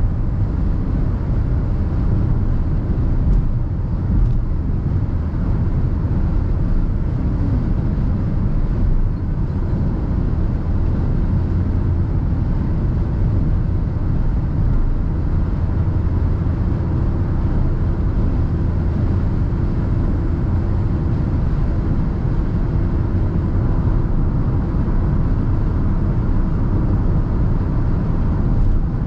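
Steady cabin noise of a 2021 Perodua Ativa 1.0 Turbo cruising at highway speed: a constant low rumble of tyres on the road and the engine running, heard from inside the car.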